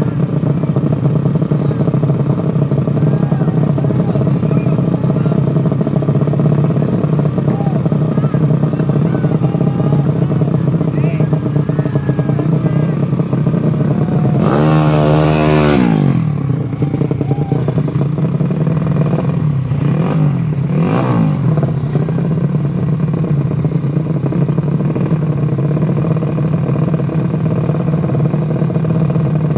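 Motorcycle engines running steadily. About halfway through, one motorcycle goes past loudly at speed, its pitch falling as it passes, and two fainter pass-bys follow a few seconds later.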